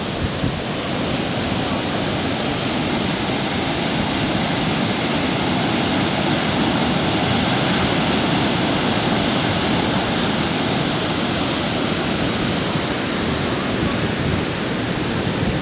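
Sea surf breaking and washing up the beach, heard as a steady, even rushing noise.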